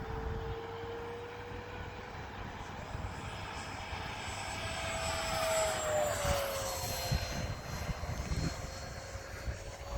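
Electric ducted-fan whine of a Freewing Avanti S 80mm RC jet in flight. The pitch rises slowly, then drops as the jet passes by about six seconds in, with gusty wind buffeting the microphone.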